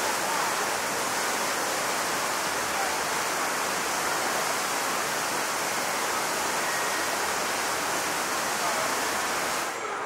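Steady rush of running water from the channels and falls of a river rapids ride, Infinity Falls, flowing while the ride itself is shut down. It cuts off abruptly near the end.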